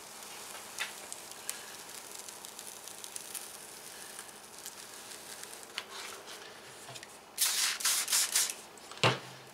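Paper backing of a large vinyl decal being peeled and rubbed, with faint crinkling. Near the end, four quick squirts from a trigger spray bottle of soapy water wetting the decal's adhesive, then a sharp knock.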